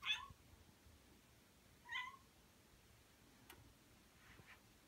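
Ragdoll cat giving two short, high meows about two seconds apart.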